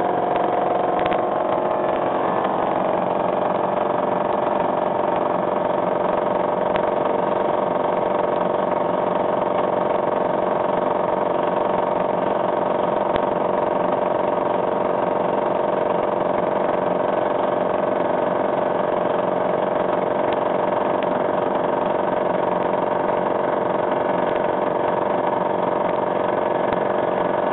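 Electric upright air compressor on a 220-volt circuit running steadily and loudly as it pumps up its tank, not yet at the pressure-switch cut-out.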